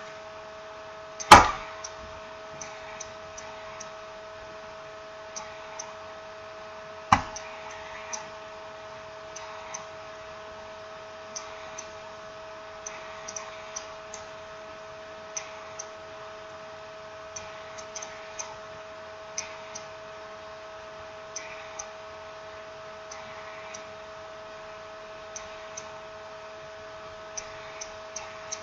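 Small irregular clicks and taps of hands and tools working on smartphone parts, with two sharper knocks, one about a second in and one about seven seconds in, over a steady two-tone electrical hum.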